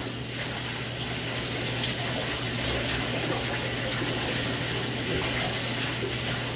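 Bathtub tap running, water pouring steadily into the tub.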